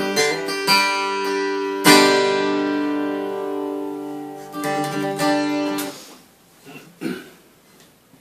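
Acoustic guitar strumming the closing chords of a country song. A last chord rings and fades out about six seconds in, followed by a couple of soft knocks.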